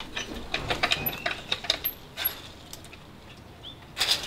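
Clicking and knocking of a small wooden coop door on metal hinges being worked open by hand, busiest in the first half and again near the end, with a couple of brief chirps from the young hens.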